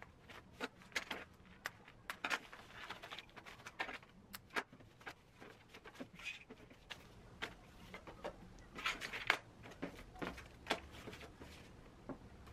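IKEA KUNGSFORS string net bags and their paper labels being handled and unfolded on a tabletop: faint, irregular rustles and light taps, with a denser rustle about nine seconds in.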